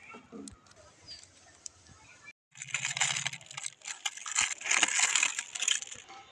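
Clear cellophane wrapping crinkling and tearing as fingers peel it off a strip of firecrackers: a dense run of crackling rustles from about two and a half seconds in until just before the end, after only faint handling clicks.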